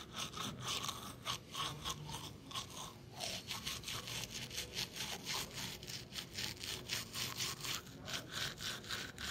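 Manual toothbrush scrubbing teeth through a mouthful of toothpaste foam, in rapid back-and-forth strokes of about five a second.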